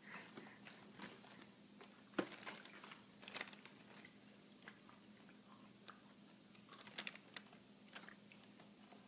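Near-quiet room with faint, scattered small clicks and crackles, a sharper click about two seconds in and a few more close together near the end.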